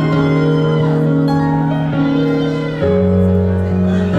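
Live band music: slow, sustained chords with guitar, the bass and chord shifting to a new one about three seconds in.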